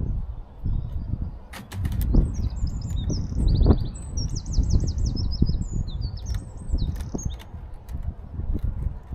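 A small songbird sings a phrase of quick high chirps and fast trills from about two seconds in to about seven. Under it runs a steady low rumble, and there are a few sharp clicks.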